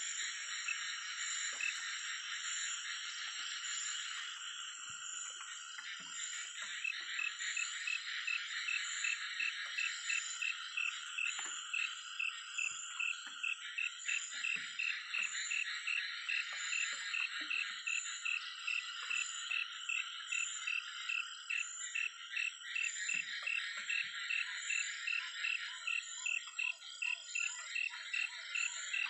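Night chorus of frogs and insects: a dense steady trilling with regular pulsed calls repeating a few times a second.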